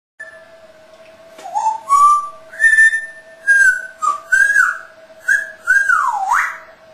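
A parrot whistling a string of about six short, clear notes and pitch glides, starting about a second and a half in; the last one swoops down and back up.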